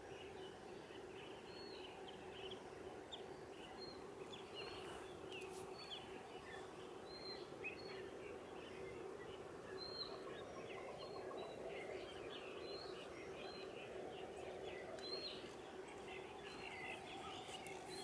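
Many short, high bird chirps and calls from several birds, scattered throughout, over a steady low hum.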